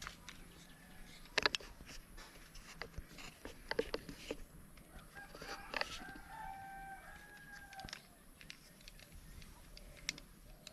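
A bird's long, held call, steady in pitch, lasting about two and a half seconds around the middle, amid scattered faint clicks and knocks.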